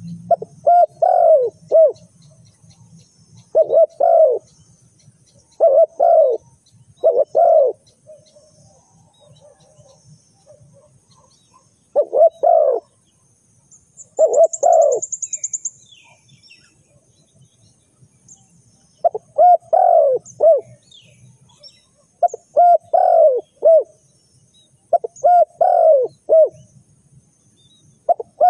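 Spotted dove cooing: short phrases of a few low, rounded coos, repeated about ten times with pauses of a few seconds between.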